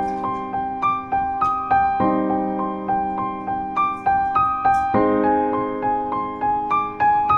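Background piano music: a melody of single notes, about two a second, over held chords that change roughly every three seconds.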